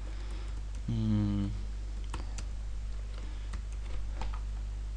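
Computer keyboard typing: scattered single keystrokes. About a second in, a short hummed "mm" from a voice; a steady low electrical hum lies under it all.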